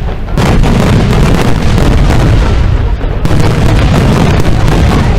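Fireworks going off in a rapid, continuous barrage of booming shell bursts and pops, packed so close they run together.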